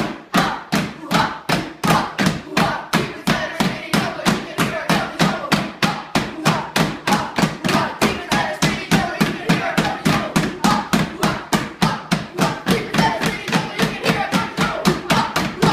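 Children slapping and tapping the seats of wooden stools in a steady beat, about four hits a second, while they sing a camp song.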